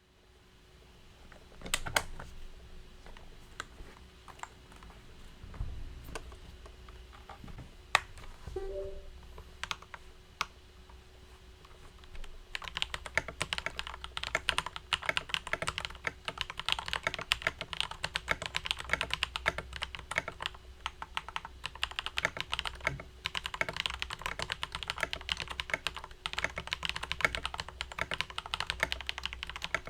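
Typing on a Model VI budget mechanical keyboard. For the first twelve seconds or so there are only scattered single keystrokes, then fast continuous typing starts and keeps going.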